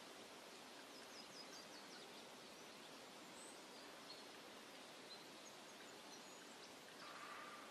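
Faint forest ambience: a steady low hiss with scattered, distant small bird chirps, including a quick run of high chirps about a second in.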